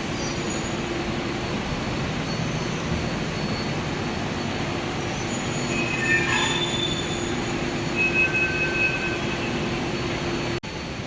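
Metro train running, a steady rumble and hum, with brief high-pitched wheel squeals about six seconds in and again two seconds later. The sound drops out for a moment near the end.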